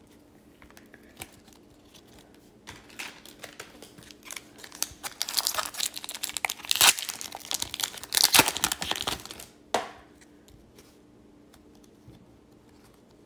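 Foil wrapper of an Upper Deck Series 2 hockey card pack being torn open and crinkled by hand. The rustling crackle starts about three seconds in, is loudest in the middle, and stops about ten seconds in.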